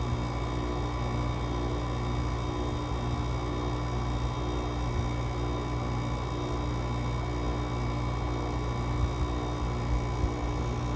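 GE AWS05LSK1 5,050 BTU window air conditioner running with its Samsung rotary compressor, a steady low hum with several constant tones above it. This is a cold start in 15°F weather, well below the 60°F usually recommended for a rotary-compressor unit, with the coil frosting as head pressure builds.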